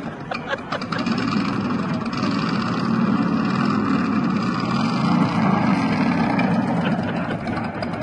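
An engine running steadily with a low, wavering note, growing louder about a second in and easing off near the end.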